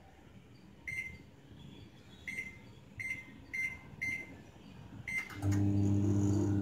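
Samsung microwave oven keypad beeping six times as the cook time is set to four minutes, then the oven switching on a little after five seconds in and running with a steady low hum.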